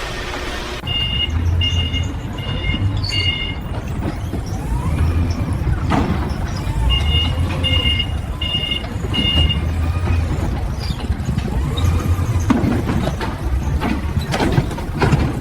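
Short electronic warning beeps, a little under two a second, in a run of four and then a run of five, over a low steady machinery rumble, with a few knocks near the end.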